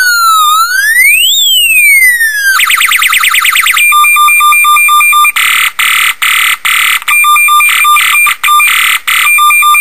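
UM3561 electronic siren sound chip played through a horn loudspeaker, switching modes. It gives a slow rising-and-falling wail, then about a second of fast repeated upward sweeps. Then comes a rapid pulsing 'machine gun' tone, broken several times by short bursts of a harsher, fuller blare.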